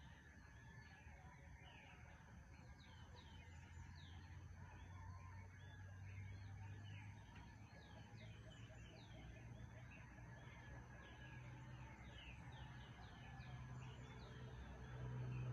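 Faint early-morning birdsong: many small birds chirping in quick, repeated short notes. Under it runs a low hum that grows louder near the end.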